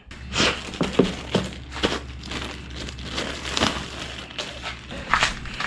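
Crinkling and rustling of wrapping with irregular sharp knocks as a new engine air filter is unwrapped and handled.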